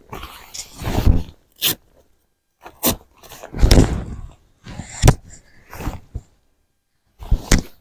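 Close rustling and handling of a waterproof coat and hood being pulled on and adjusted, in irregular scuffs with a few sharp knocks and clicks among them.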